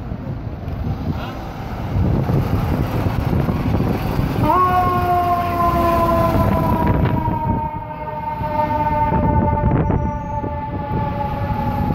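Fire engine pulling out with its diesel engine rumbling; about four and a half seconds in, its Federal Q2B mechanical siren sounds, rising sharply in pitch and then falling slowly as it coasts down.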